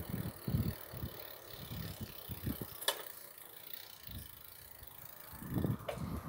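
Riding a bicycle: irregular low gusts of wind buffeting the microphone, with light mechanical rattling from the bike and a sharp click about three seconds in and another near the end.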